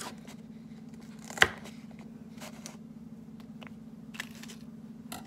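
Knife cutting through crisp lettuce on a cutting board: one sharp knock of the blade about a second and a half in, then a few softer crunching cuts.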